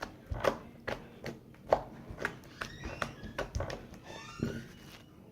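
Clear slime being squeezed and popped by hand, giving sharp clicks about twice a second.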